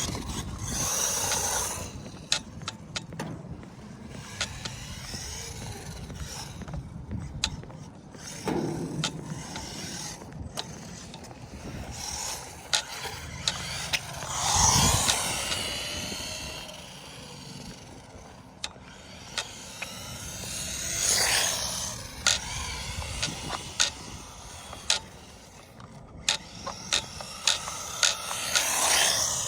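Traxxas Mini E-Revo VXL RC truck's brushless motor whining in bursts of throttle, rising and falling about four times as it drives around. Sharp clicks and knocks are scattered throughout.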